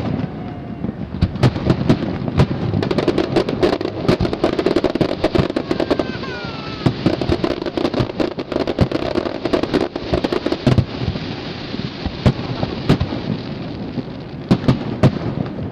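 Aerial fireworks shells bursting in quick succession: a dense run of sharp bangs and crackles over a continuous rumble, thickest through the middle.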